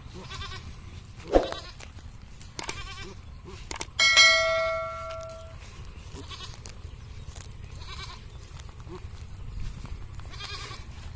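Goat bleating several times in short, wavering calls. A bell rings once about four seconds in, the loudest sound, and a sharp knock comes a little over a second in.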